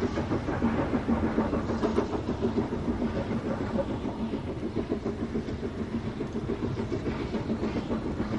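BR Standard Class 9F 2-10-0 steam locomotive Evening Star working a train: a steady, rapid run of beats and rail clatter that keeps on without a break.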